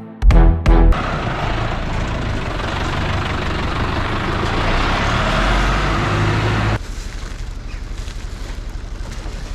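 A motor vehicle engine running with a heavy low rumble. About seven seconds in it drops suddenly to a quieter, evenly pulsing idle.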